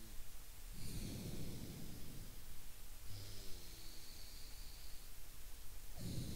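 A man breathing hard through one nostril close to a microphone, doing alternate-nostril breathing (anulom vilom pranayama). A loud rushing nasal breath comes about a second in and lasts about a second. A quieter breath with a faint falling tone follows around the middle, and another rushing breath starts near the end.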